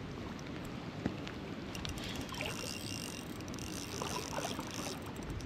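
Water sloshing and trickling, with a single sharp click about a second in.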